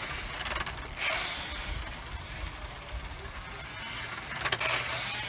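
A small electric RC car's motor and drivetrain whining high, the pitch swooping up and down as it speeds up and slows. The whine is joined by two louder rushes, about a second in and near the end.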